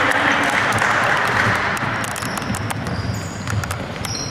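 Spectators clapping and cheering, a dense wash of noise that dies away after about two seconds, with a few sharp knocks.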